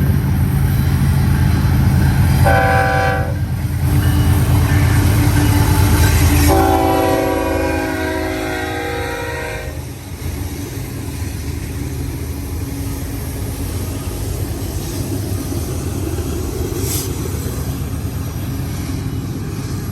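Diesel locomotives leading a BNSF intermodal freight train pass close by with a heavy engine rumble, sounding their multi-tone horn in a short blast about two and a half seconds in and a longer one from about six and a half to nearly ten seconds. After that the steady rumble of the intermodal cars rolling past continues.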